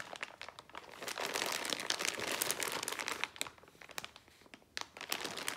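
Clear plastic parts bags crinkling and rustling as they are handled, in two spells with a short lull about four seconds in.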